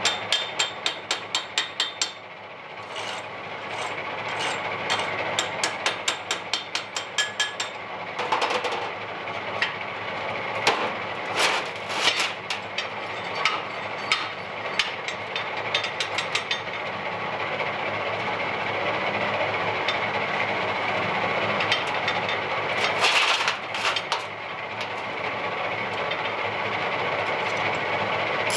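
Metalworking on steel: quick runs of sharp metal strikes, about five a second, then scattered knocks, giving way to a steady machine noise that grows louder toward the end, with a brief louder burst partway through.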